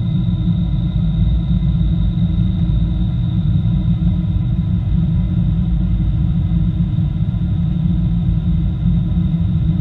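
Boeing 747-8i cabin noise heard at a window seat during descent: a steady, loud low rumble of airflow and the GEnx engines, with a thin steady high whine above it.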